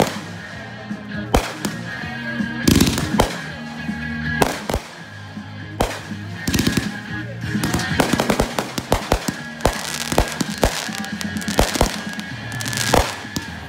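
Fireworks going off: aerial shells bursting with separate loud bangs, then a dense run of crackling bangs from about eight to twelve seconds in. Music plays underneath.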